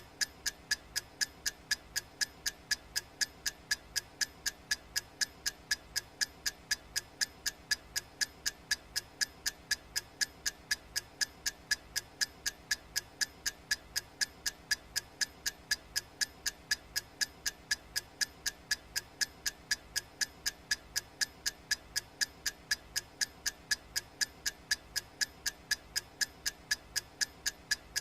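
Clock ticking sound effect of a countdown timer: a steady, even tick-tock at about two ticks a second.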